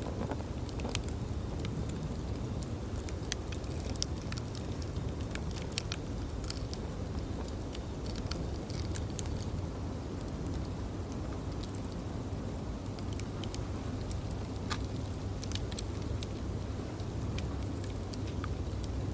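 Bonfire crackling: scattered sharp pops and snaps over a steady low rumble.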